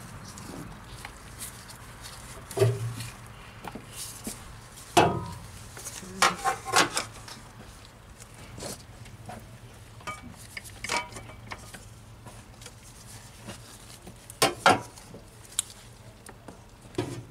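Handling noises from a funnel and flexible filler hose being worked into a truck's transmission dipstick tube: scattered knocks and light clinks. The loudest come about five seconds in, a quick cluster a second later, and a pair near fifteen seconds.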